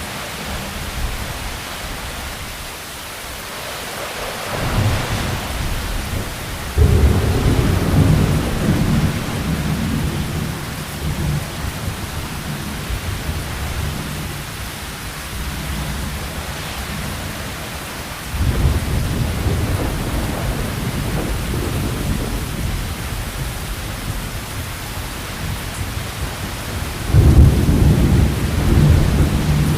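Heavy rain falling steadily, with thunder rumbling through it several times. Loud rolls of thunder come about 7 seconds in and near the end, and lesser rumbles come about 5 and 18 seconds in.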